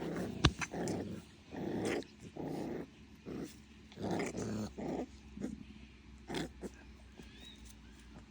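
Pit bull puppies growling in short, repeated bursts, with a sharp knock about half a second in.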